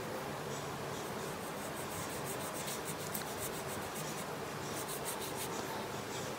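Soft, rapid scratching of a wet paintbrush's bristles rubbed back and forth over rollerball ink on paper, in two spells: a water test of whether the ink runs.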